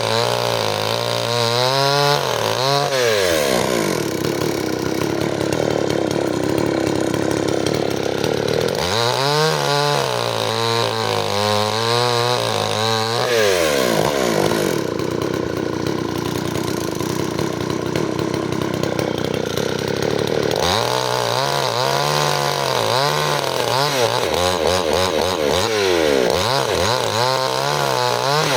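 Stihl chainsaw running and sawing firewood, its engine pitch wavering and shifting back and forth between steadier stretches and denser, rougher stretches several times.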